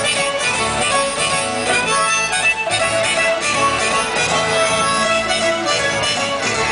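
Folk-pop band playing live: an instrumental break between sung verses, a lead melody over plucked strings and a contrabass balalaika.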